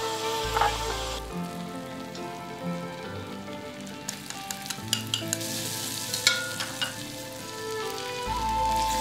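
Hot oil sizzling in a wok, with scattered sharp pops and clicks in the middle. Near the end a dark sauce is poured into the hot oil and the sizzle swells louder.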